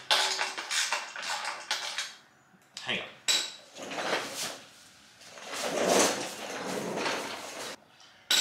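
Loose steel mounting hardware, bolts, nuts and small brackets, clinking together in the hand and against the aluminium skid plate as it is sorted, in a run of irregular clicks and rattles.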